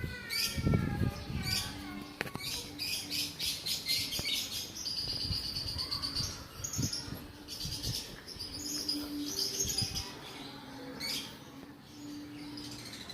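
Lovebirds chirping: rapid runs of high-pitched chirps, repeated through the whole stretch.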